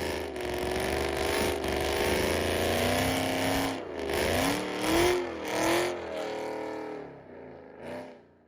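Ford Mustang Bullitt's 4.6-litre three-valve V8, breathing through long-tube headers and an off-road H-pipe, revving up and down several times. The sound fades out just before the end.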